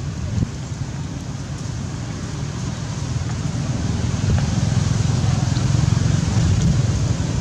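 Wind buffeting the microphone: a steady low rumble that grows a little louder about halfway through.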